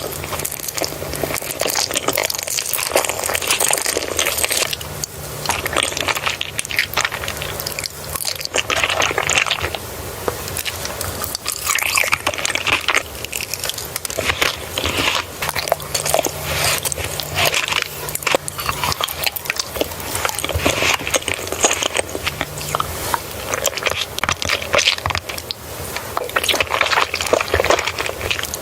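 Close-miked eating: continuous biting, crunching and chewing, dense with crackles and small clicks.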